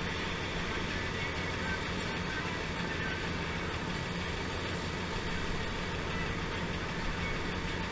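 Diesel engine of a heavy earthmoving machine running steadily as it works a muddy dirt road, a continuous low hum with no pauses or sharp knocks.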